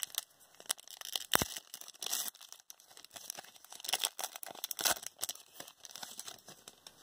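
Foil wrapper of a Panini Prizm basketball trading-card pack being torn open and crinkled, in irregular crackling rustles.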